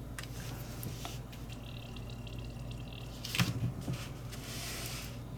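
Water dripping and sloshing as a butane lighter is handled in water during a bubble test for gas leaks, with one louder splash or knock about three and a half seconds in.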